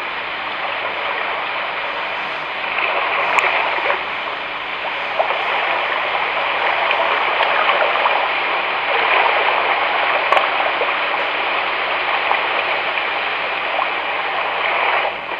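Ocean-wave sound from a Three Sheep S7 baby sound machine, played through its small speaker: a steady rush of water noise that swells and eases, dropping off near the end.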